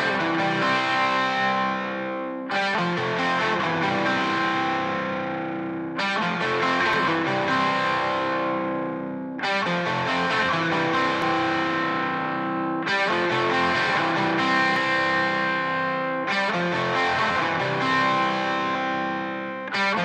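Doubled distorted electric guitars in a song mix play sustained chords, struck about every three and a half seconds and left to ring down. The two takes sit about 45 degrees out of phase with each other.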